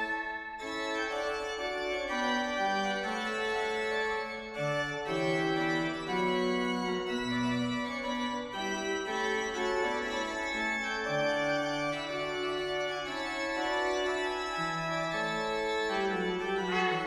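Church grand pipe organ playing alone: sustained chords with moving lines, the notes changing every second or so.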